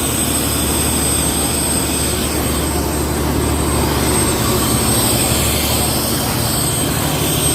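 Fishing boat's engine running steadily with a low, even hum and a constant rushing noise over it.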